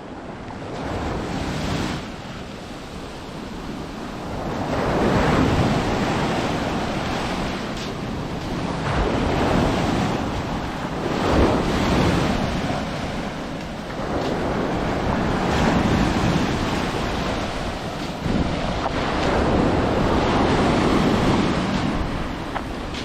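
Sea of Azov surf washing onto a sandy beach: waves of noise swelling and easing every few seconds, with wind buffeting the microphone. The sound fades in over the first couple of seconds.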